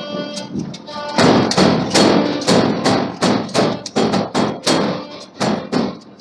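Repeated heavy hammer blows on steel, about two to three a second, starting a second or so in, over background music with guitar.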